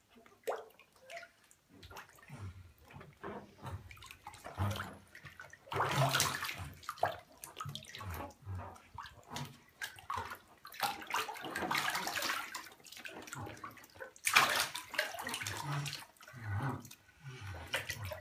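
Bath water splashing and sloshing in irregular bursts as a baby floating in an inflatable neck ring kicks in the tub, with several louder splashes among quieter lapping.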